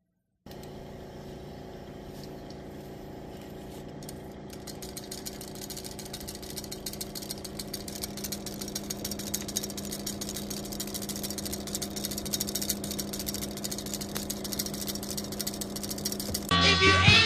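A train engine running steadily with a drone at several fixed pitches, under a rattling clatter that grows denser and louder. It starts half a second in and gives way to band music near the end.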